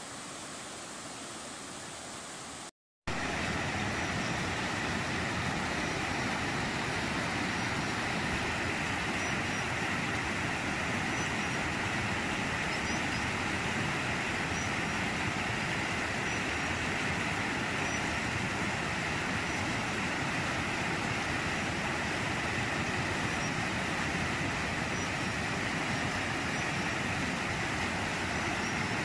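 Fast river rapids rushing steadily. A brief dropout about three seconds in, after which the rushing is louder.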